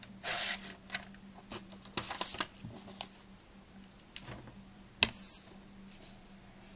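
A few short rustling swipes and scattered light clicks from the Viper Start folding knife being handled, the loudest a sharp click with a swipe about five seconds in.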